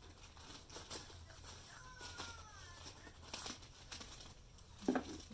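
Scissors cutting into a plastic poly mailer bag: scattered snips and plastic crinkles, with a brief squeaky glide about two seconds in and a louder short rustle near the end.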